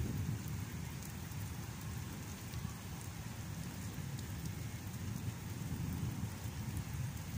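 Steady rain falling on paving and rooftops, with scattered drop ticks and a low rumble underneath.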